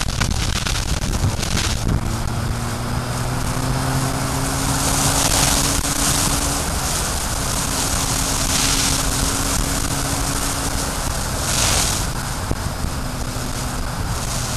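A vehicle's engine running steadily as it drives along, under heavy wind and road noise on the camera's microphone. The engine's pitch rises slightly a few seconds in, then holds, and the wind surges louder about three times.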